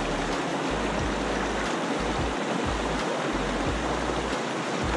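Shallow stream rushing steadily over rocks in a fast riffle, an even wash of water noise.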